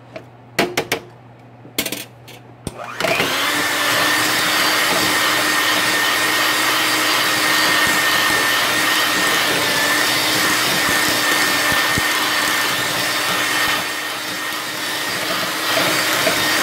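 A few sharp clicks and knocks, then about three seconds in a handheld electric mixer starts and runs loud and steady, its beaters whipping mashed potatoes in a metal pot, with a steady motor whine over the churning.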